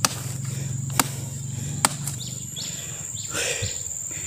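A steady high-pitched insect drone, with three sharp knocks about a second apart in the first half. From about halfway, a bird calls in short falling chirps, several times over.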